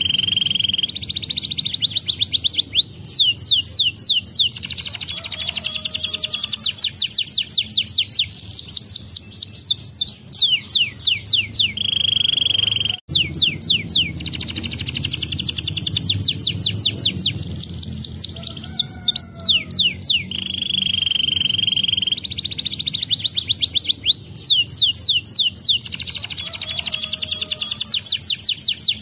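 Canary singing long phrases of fast, high trills and rolls, one after another. There is a brief break about thirteen seconds in, after which the same phrases repeat.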